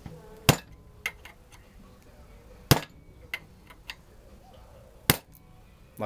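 Three hard hammer blows on a screwdriver set against a cast-alloy VCR head drum clamped in a steel vise, about two seconds apart, with a few light taps between them. The blows are chiselling off a section of the drum, which is tough and takes several strikes to break.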